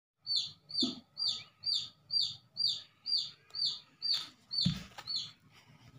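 A bird chirping over and over, short falling notes about two a second, evenly spaced. A soft knock comes near the end.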